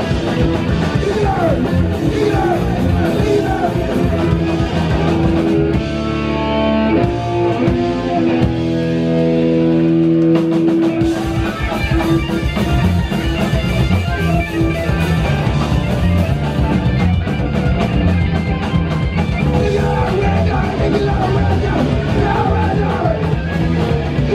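Hardcore punk band playing loud and live: distorted electric guitars, bass and fast drums. About six seconds in the drumming thins out and held notes ring for several seconds before the full band comes back in.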